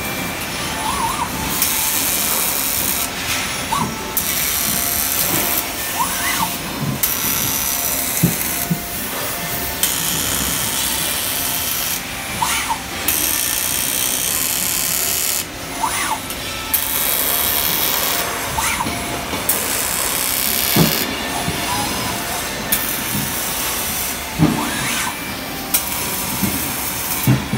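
Arc welding of thin 1.0 mm car-body sheet steel in many short welds: a harsh hissing crackle switches on and off abruptly a dozen or so times, each weld lasting a second or two, with short rising whirrs in the gaps between them.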